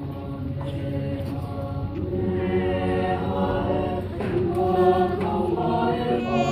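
A high school choir singing an anthem in slow, held notes.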